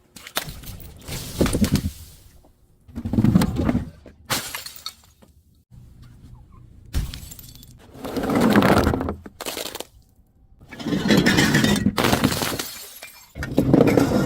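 Glass bottle being crushed and broken in about five separate bursts of breaking and crunching glass, each lasting a second or two, with short quiet gaps between.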